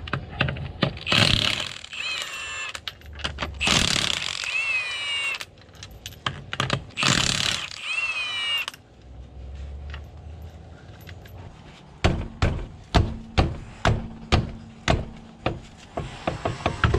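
Milwaukee cordless impact wrench hammering a car's wheel bolts loose in three bursts, each trailing off in the motor's whine. Near the end comes a regular run of sharp knocks, about two a second.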